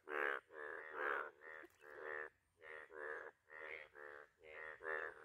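A chorus of Indian bullfrogs, yellow breeding males, calling: short harsh croaks, about two a second, several frogs overlapping. These are the males' mating calls.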